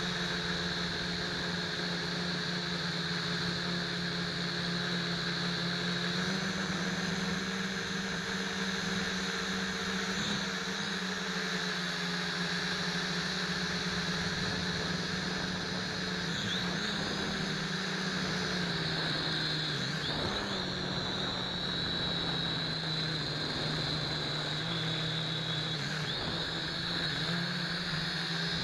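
Small MJX quadcopter's electric motors and propellers whining steadily in flight, the pitch stepping up and down a few times as the throttle changes.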